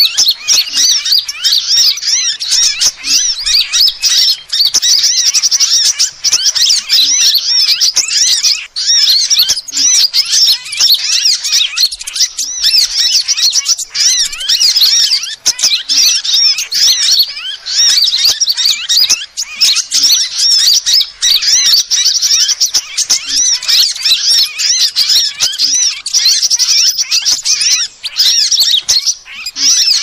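Bird-lure recording of sunbirds calling: a dense, unbroken stream of rapid high-pitched chirps and trills.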